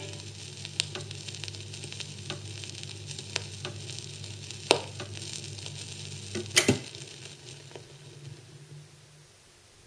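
Surface crackle and hiss of a 7-inch vinyl single on a portable record player, the stylus riding the run-out groove, with scattered clicks and a louder pop about six and a half seconds in over a low hum. The hum and hiss drop away near the end.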